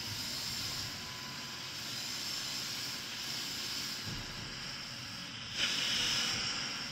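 Electric drive motors of a LEGO Technic Transformation Vehicle whirring as its tracks drive it across a laminate floor. A louder stretch of about a second comes about five and a half seconds in.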